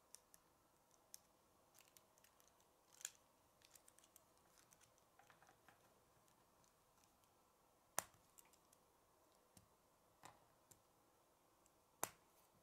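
Faint scattered clicks and ticks of K'nex plastic pieces being handled and snapped together, with sharper snaps about three, eight and twelve seconds in.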